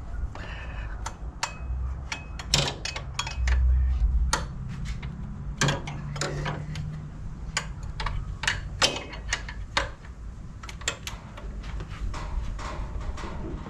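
Irregular metallic clicks and knocks of a 19 mm wrench working a tight serpentine belt tensioner.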